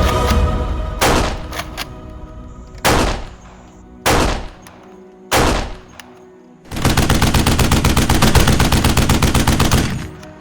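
Gunfire sound effects: five single loud shots about a second apart, then a burst of rapid automatic fire lasting about three seconds.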